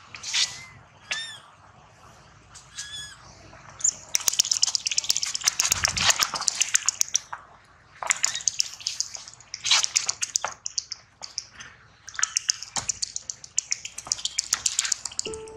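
Young macaques calling: a few short, squeaky calls in the first seconds, then from about four seconds in a loud, high, harsh screeching that comes in rapid pulses, in several spells.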